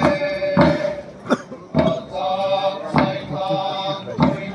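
Group of voices chanting on held notes, with a drum struck at a steady beat about once a second: Kuki traditional dance chant with drum.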